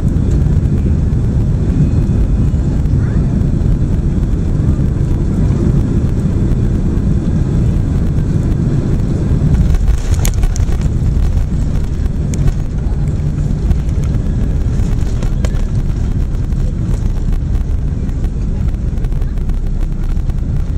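Boeing 767 cabin noise during landing: a loud, steady low rumble of engines and airflow, swelling slightly about halfway through, with a few faint sharp ticks.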